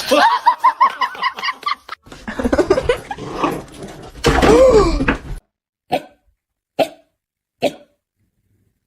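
A dog vocalizing: a quick run of high, pitched yips, then some rougher noisy sounds, then three short barks about a second apart.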